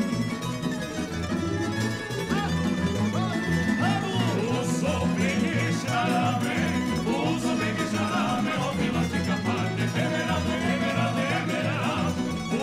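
Live tamburica ensemble music: small plucked tamburicas playing a lively folk tune over a bass line.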